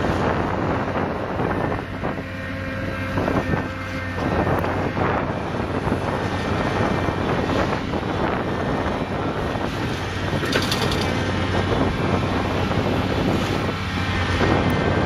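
Caterpillar tracked excavator's diesel engine running steadily, with wind buffeting the microphone. A few sharp cracks and clatters of wooden debris are heard as the bucket works the demolition pile, the clearest about ten seconds in.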